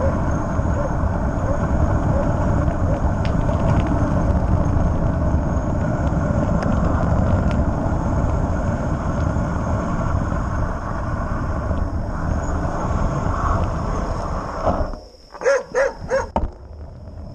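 Wind rushing over the camera microphone of a mountain bike descending a paved road at speed, a steady loud rumble. Near the end the wind noise drops and a dog barks four times in quick succession.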